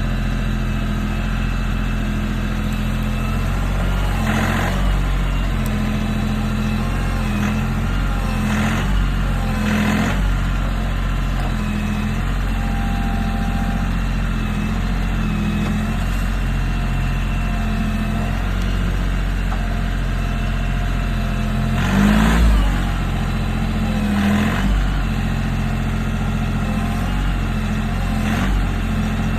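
Kioti CK3510 compact tractor's diesel engine running steadily under load while the grapple digs in and pulls at a small tree, with several short louder surges, the loudest about 22 seconds in.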